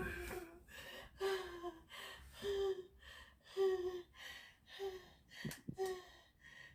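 A woman moaning in pain: six short cries, each falling in pitch, about one a second with breaths between, getting shorter toward the end. A couple of faint clicks come about five and a half seconds in.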